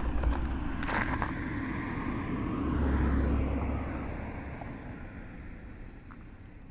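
Low wind rumble on the microphone while riding, with a vehicle passing that swells about three seconds in and then fades away; everything grows quieter toward the end.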